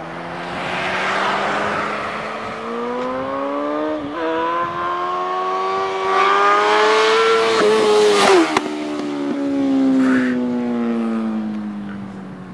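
Sport motorcycle accelerating hard toward and past, its engine note climbing with a short break about four seconds in as it shifts gear. Loudest about eight seconds in, where the pitch drops sharply as it passes close by, then it falls in pitch and fades as it rides away.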